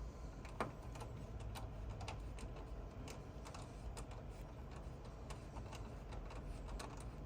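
Hand screwdriver driving small zinc screws into a mixing console's screen mount: light, irregular clicks and ticks of the tool and screws, with one sharper click about half a second in.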